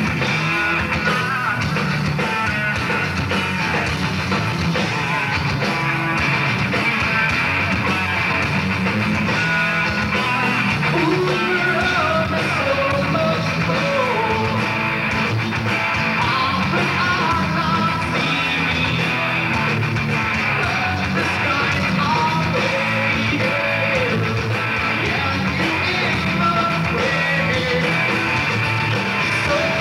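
Heavy rock band playing live at full volume: distorted electric guitars, bass guitar and drums, with a singer's voice over the band.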